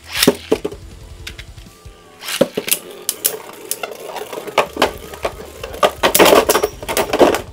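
Beyblade spinning tops clashing in a plastic stadium: a run of sharp clacks, scattered at first, then a fast, dense flurry of hits near the end that stops abruptly.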